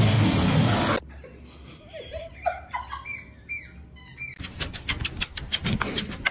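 A loud rushing noise cuts off about a second in. Then a small animal gives several short, high squeaky calls that glide up and down. Near the end comes a quick run of sharp scratchy clicks.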